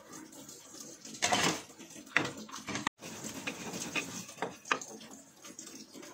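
Kitchenware clattering, with a loud scrape about a second in. Then a stone pestle knocks and grinds in a stone mortar (cobek), with a few sharp clicks.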